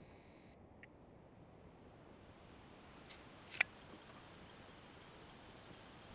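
Quiet room tone with a faint steady high whine and faint regular ticking, and one sharp click about three and a half seconds in.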